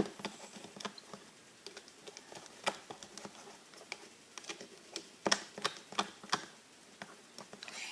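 A fork clicking and tapping against a small container while stirring glue and red food colouring, in irregular, scattered clicks.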